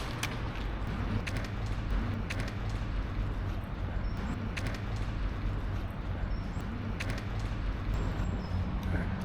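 Outdoor ambience: a steady low hum like distant traffic, irregular light footstep clicks, and a few brief, faint, high bird chirps.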